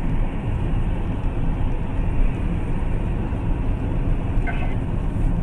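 Steady road and engine rumble of a vehicle driving at speed on a highway, heard from inside the moving vehicle.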